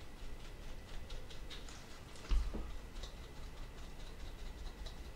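Faint, irregular ticks of an artist sponge loaded with craft paint being dabbed lightly against a fragile laser-cut wooden part, with one low bump about two seconds in.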